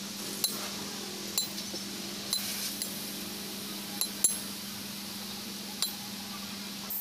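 Hammer striking a steel punch set against a truck clutch plate's friction lining and rivets, knocking out the old rivets: about six sharp metallic clinks at uneven intervals, two in quick succession about four seconds in, over a steady low hum.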